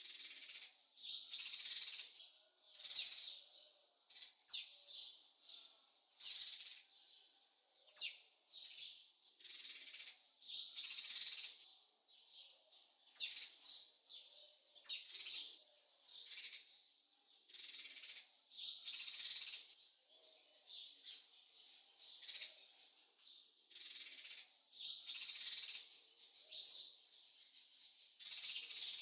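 Added bird-chirping sound effect: small birds chirping in repeated short, high bursts, roughly one a second.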